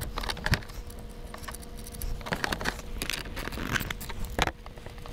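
Light metallic clicks and clinks of a socket ratchet and cable lugs at a lead-acid battery's terminal post, coming in short clusters as the battery cables are undone.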